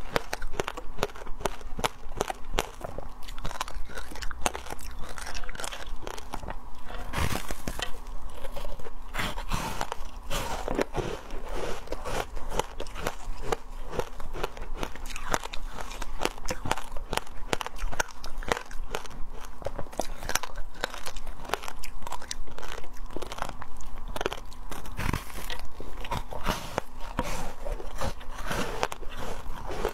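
Foam ice being bitten and chewed: a dense, continuous run of crisp crunches and crackles.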